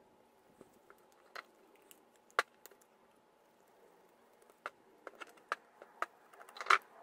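Small metallic clicks and taps of a screwdriver and carburetor parts being handled while screws are worked on a small outboard carburetor. The clicks are scattered, with the sharpest one about two and a half seconds in and a quick cluster near the end, over a faint steady hum.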